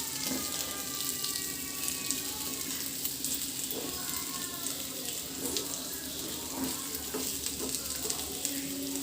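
Cornflour-coated chicken pieces sizzling steadily as they shallow-fry in butter in a frying pan, with small scattered crackles.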